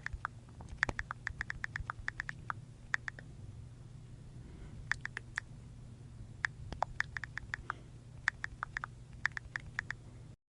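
Rotary telephone dial clicking out numbers: short runs of quick clicks, about ten a second, with pauses between the runs, over a low steady hum. It cuts off just before the end.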